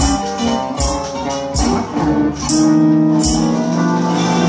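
Small string band playing live without singing: resonator guitar, steel guitar, upright bass and archtop electric guitar, with a sharp accent on the beat about every 0.8 s. About two and a half seconds in, the band settles onto long held notes.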